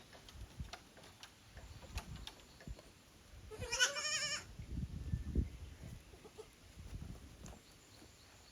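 A goat bleats once, a single call about a second long with a wavering pitch, a little before the middle; faint scattered clicks and low rumbling sound around it.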